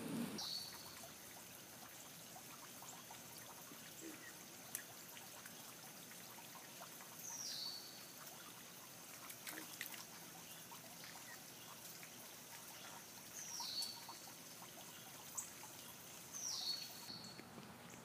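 Faint trickle of water in a shallow creek, under a steady high thin tone, with a short falling high-pitched call four times.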